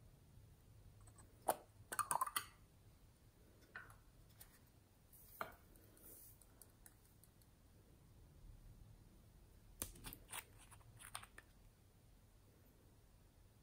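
Faint clicks and taps of small plastic containers being handled. A quick cluster of sharp clicks about two seconds in, as the lid comes off a plastic jar, is the loudest sound. Scattered single taps follow, then another run of clicks around ten seconds in as a nail polish bottle is opened.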